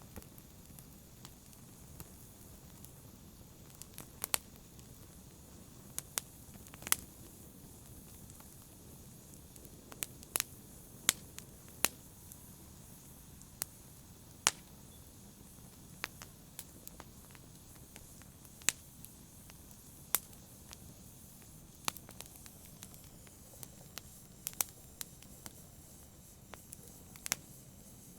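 A fire crackling: irregular sharp pops, roughly one a second, over a low steady hiss.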